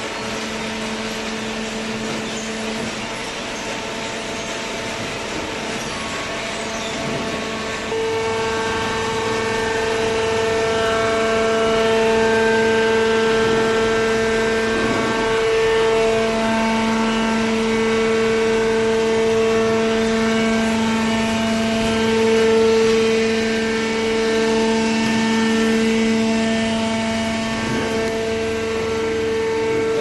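Cardboard shredder and hydraulic auto-baler line running: a steady machine hum with whining tones, growing louder about eight seconds in.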